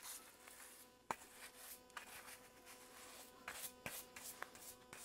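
Faint scratching of a nylon-bristle brush scrubbing oil over a dumbbell's painted head, with a sharp click about a second in and another near four seconds.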